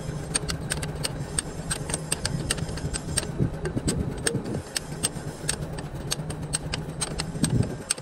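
Quick, irregular metallic clicks of a steel socket being spun by hand on a bulldozer bolt, over a steady low engine hum.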